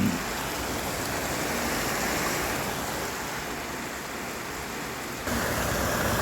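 Heavy downpour: a steady, dense hiss of rain. About five seconds in, the sound changes suddenly, becoming louder with a deeper rumble added.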